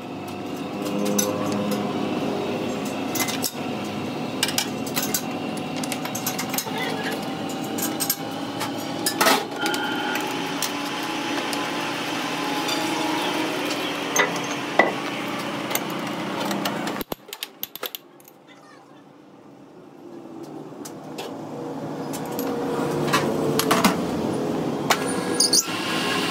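Metal clinks and knocks of a chuck key and a steel wheel hub being fitted into a lathe chuck, over a steady machine hum. The hum drops away briefly about two-thirds through, then builds back up as the lathe runs with the chuck spinning.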